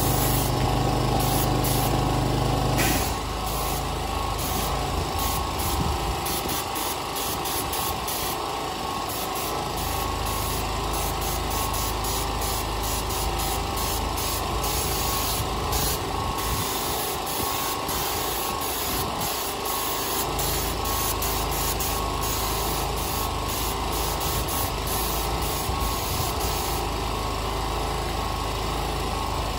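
Small portable petrol generator running steadily. A pitched motor hum on top of it stops about three seconds in.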